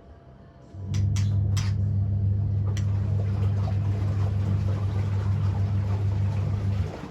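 A steady low machine hum that switches on abruptly about a second in and cuts off near the end, with a few sharp clicks just after it starts.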